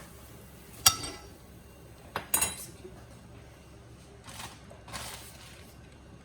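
Kitchen utensils and dishes clinking: a sharp clink about a second in and two more just past two seconds, the loudest. A few softer scraping and rustling sounds follow.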